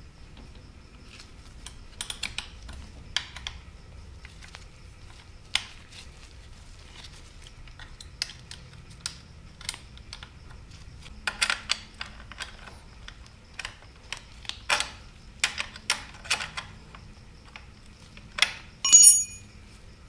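Irregular metallic clicks and clinks of a wrench and Allen key working the bolts of an electric bike's rear motor bracket and chain tensioner. They come thicker in a run of clicks midway, and one short ringing metal clink comes near the end.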